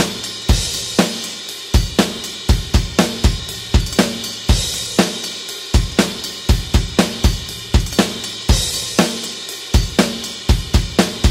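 Rock drum kit playing a steady beat at 120 bpm: kick, snare and hi-hat in an even groove, with a cymbal crash about half a second in, again about four and a half seconds in and near the nine-second mark.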